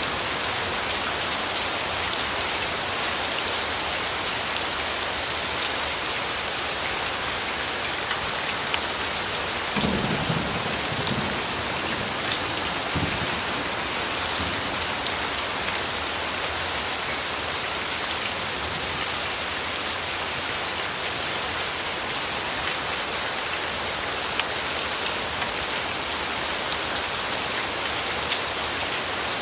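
Steady, dense rain falling, with a low rumble of thunder about ten seconds in that lasts a few seconds.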